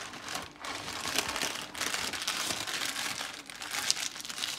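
Parchment paper crinkling and rustling as hands fold it over a fish and sliced vegetables to wrap them, with a couple of brief pauses.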